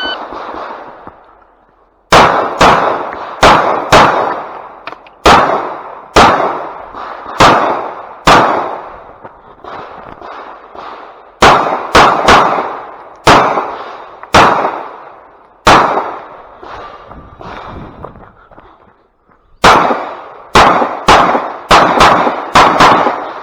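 Shot timer beep, then a Glock 45 9 mm pistol firing a USPSA stage: about twenty shots, mostly in quick pairs, with short pauses between strings. Each shot has a short echoing tail.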